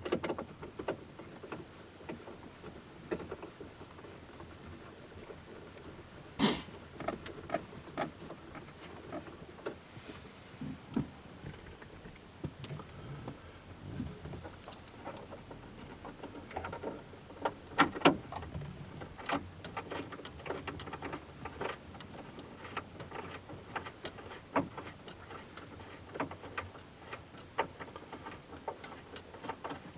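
Small screws being started by hand into a pickup truck's dashboard instrument cluster: scattered light clicks and taps of metal and plastic, with a few sharper knocks.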